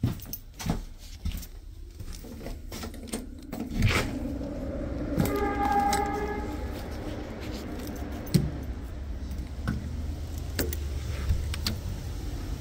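Footsteps and handling clicks and knocks as someone walks out through a door, then a steady outdoor rumble of traffic. A short pitched tone sounds about five seconds in.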